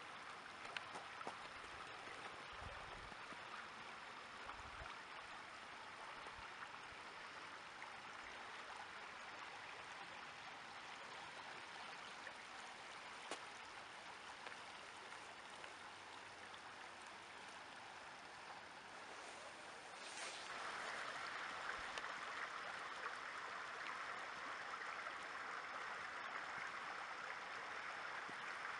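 River water running steadily, a faint even rush of flowing water. About twenty seconds in it turns a little louder and brighter.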